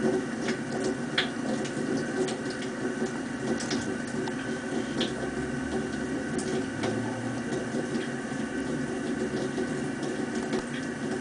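Hamster chewing a superworm: scattered small, sharp crunches at irregular intervals over a steady background hum.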